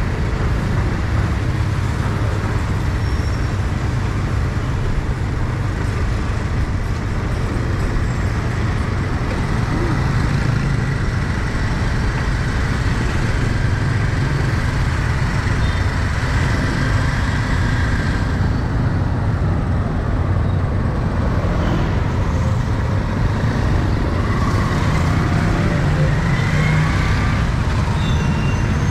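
Steady street traffic noise from passing motor vehicles.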